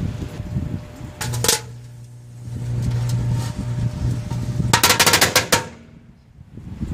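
Firecrackers going off inside a running microwave oven. A few cracks come just over a second in, then a rapid string of about ten bangs near the end, over the oven's steady low hum.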